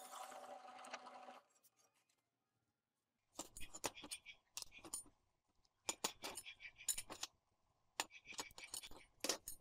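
Drill press motor running for about the first second and a half, then near silence; from about three and a half seconds in, steel angle pieces and small steel plates are set down and slid on a metal work surface in a run of sharp clinks and scrapes.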